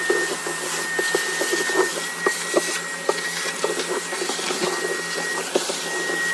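Vacuum cleaner running and sucking up floor dust and debris: a steady motor whine with frequent irregular sharp clicks.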